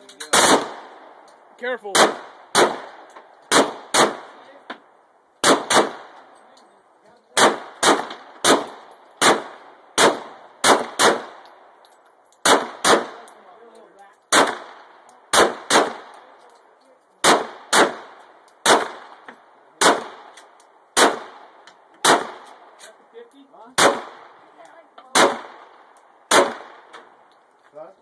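Glock 17 9 mm pistol fired over and over at an uneven pace, about one shot a second, sometimes two in quick succession. Each sharp crack is followed by a short echo.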